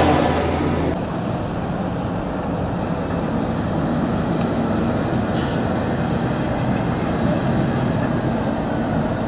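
Large farm harvester running steadily under load, a dense mechanical drone of engine and machinery; the sound shifts about a second in.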